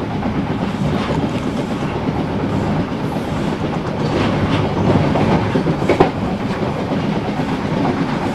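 Train running at speed along the line: a steady rumble of wheels on rail with occasional clicks, one sharp click about six seconds in.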